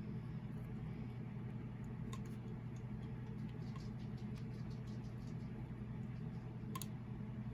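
Steady low hum with faint, scattered light clicks and scratches of small parts being handled at a desk; a sharper click about two seconds in and another near the end.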